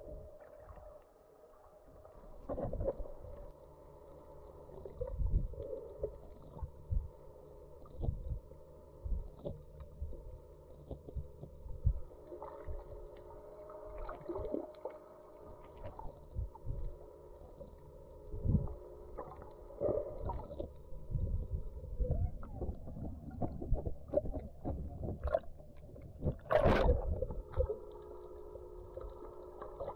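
Underwater recording: a motor's steady hum carried through the water, overlaid by irregular knocks and sloshing against the camera housing, with one sharp, loud knock near the end.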